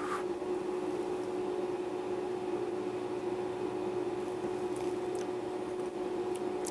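A steady machine hum holding one constant tone, with a few faint clicks near the end.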